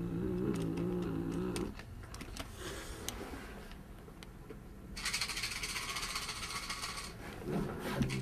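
Domestic cat growling, a low, steady growl with a tinsel sparkleball held in its mouth, which stops after about two seconds. About five seconds in comes a rustling, crinkly noise lasting about two seconds.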